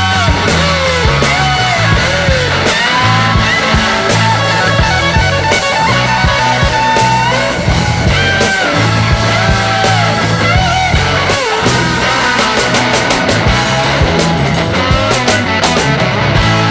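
Background rock music with electric guitar over a steady bass line.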